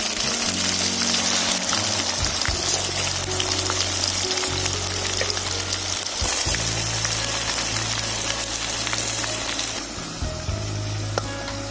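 Country chicken pieces deep-frying in hot coconut oil, a steady sizzle that weakens near the end, under background music.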